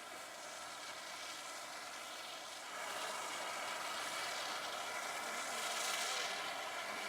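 Jet airliner engines running at taxi power, a steady noise with a layered whine that grows louder about three seconds in and swells near the end as the aircraft passes.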